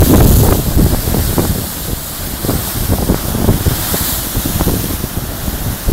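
Heavy surf pounding a rocky shore at a blowhole, loudest about the first half-second as a wave bursts up in a plume of spray, then a continuous crashing roar of broken water. Strong wind buffets the microphone throughout.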